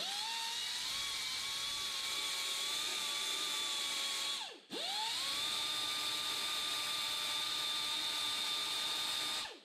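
Pneumatic die grinder running with a steady high-pitched whine as it grinds the cast-iron valve pocket of a Big Block Chevy oval port cylinder head. About four and a half seconds in it is let off, its pitch falling away, then spins back up to speed, and it shuts off near the end.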